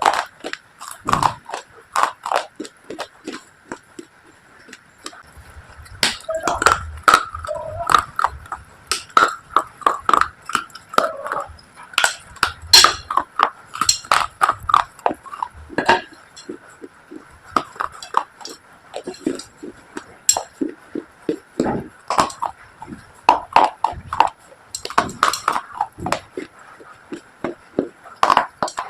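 Slate pencils and earthy clay pieces being bitten and chewed: a long run of sharp, brittle crunches, a few each second, with a short lull about three seconds in.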